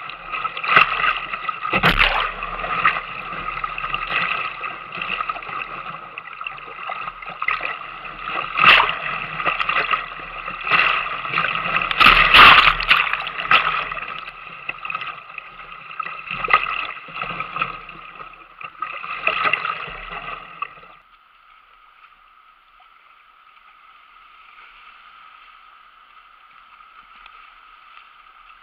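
Whitewater rapids rushing and splashing against a kayak, with several loud splashes as waves break over the bow. About two-thirds of the way in the sound drops suddenly to a quieter, steady rush of water.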